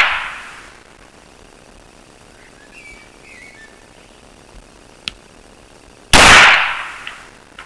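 A single shot from a Glock 17 9mm pistol about six seconds in: a sharp crack whose echo dies away over about a second. The echo of the previous shot is fading at the start, and there is a faint click about a second before the shot.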